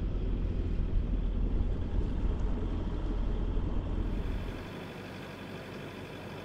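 Sailboat's inboard engine running at low revs, a steady low rumble that drops to a quieter hum about four and a half seconds in.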